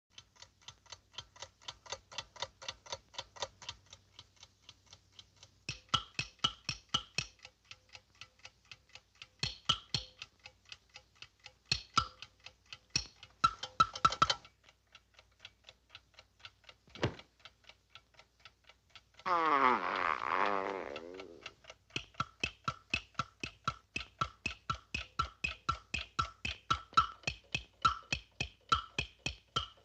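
A dog making rapid, rhythmic quacking pants, about three a second, with a buzzy voiced edge that sounds like Donald Duck. About twenty seconds in, a louder wavering vocal sound lasts about two seconds.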